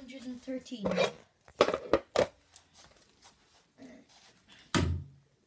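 Pen scratching on paper in a few short, quick strokes as a darts score is written down, followed near the end by a single louder thud.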